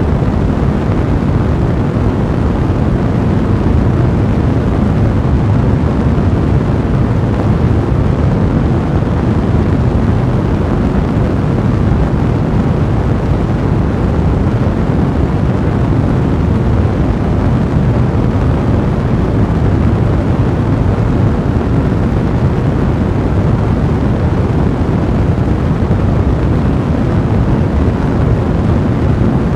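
A fire burning: steady, dense noise that is heaviest in the low end, with no pauses or changes.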